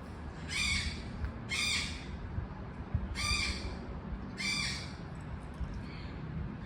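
Yellow-collared macaw squawking four times, harsh rasping calls about half a second each, roughly one every second or so.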